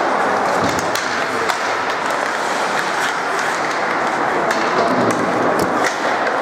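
Ice hockey play in an arena: skates scraping and sticks and puck clacking on the ice, with many short sharp clicks over a steady din of spectators' voices.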